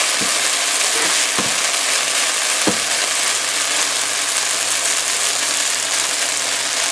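Sliced okra frying in oil in a nonstick pan, a steady sizzle as it is stirred with a plastic spoon, the dish nearly done and browning. Three short knocks of the spoon against the pan come in the first three seconds.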